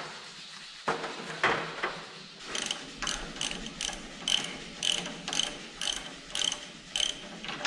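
Socket ratchet wrench clicking in short bursts, about two a second, as bolts are loosened to remove a round baler's tension roller. A couple of knocks come just before the ratcheting starts.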